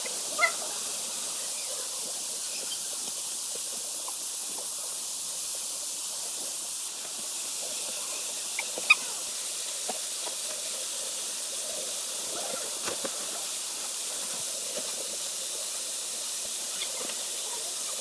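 Steady high-pitched outdoor hiss, with two short sharp chirps or clicks, about half a second in and about nine seconds in.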